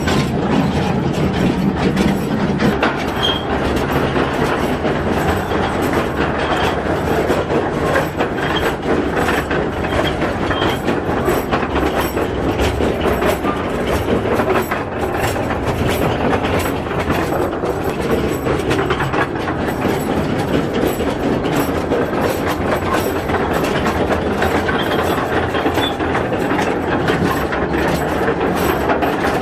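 Mine tour train running steadily along its narrow-gauge rails, with continuous rattling and clicking of the cars and wheels.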